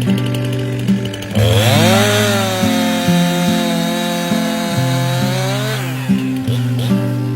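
A Stihl chainsaw revs up about a second and a half in, holds at high revs for about four seconds, then drops back. Background music with guitar and bass plays throughout.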